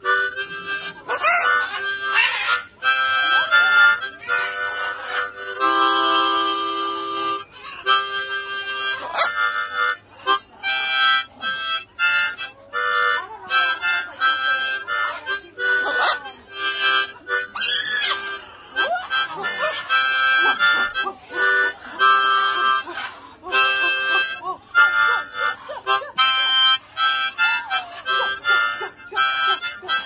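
Harmonica played by mouth: a tune in short phrases of chord-like notes broken by brief gaps.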